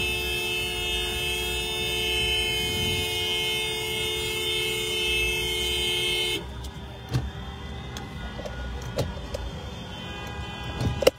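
A car horn held down, sounding one steady two-note chord that cuts off suddenly about six seconds in. After it comes quieter traffic noise with scattered small clicks and knocks.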